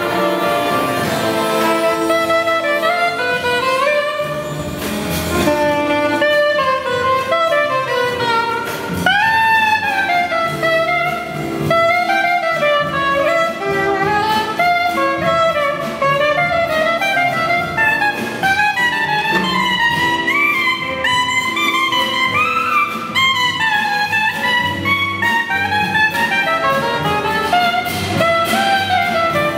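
Soprano saxophone leading a jazz big band, playing a melody full of pitch bends and swoops, with a sharp scoop up about nine seconds in, over the band's backing.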